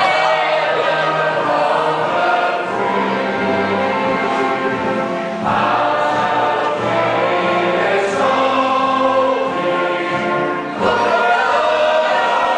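Choral music: a choir singing with many voices together, new phrases starting about five and a half and eleven seconds in.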